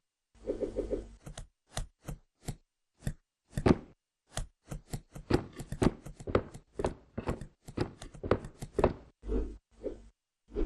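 A rapid, irregular series of sharp knocks. They come a few at a time at first, then quicken to about three or four a second through the middle before thinning out near the end.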